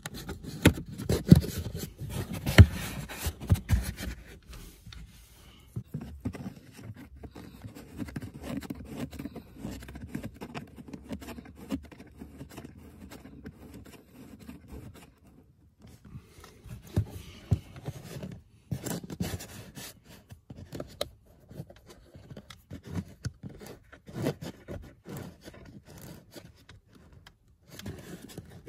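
Hands handling the plastic and foam lower trim panel under a car's glovebox: irregular scraping and rubbing, with sharp knocks in the first few seconds.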